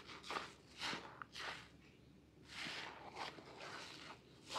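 Soapy foam sponge squeezed and kneaded by hand in thick lather, giving a string of short wet squishes with a longer one in the middle.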